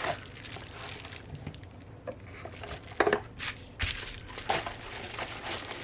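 Bubble wrap crinkling and rustling as it is packed back into a box, with a few sharp clicks and knocks about three to four and a half seconds in.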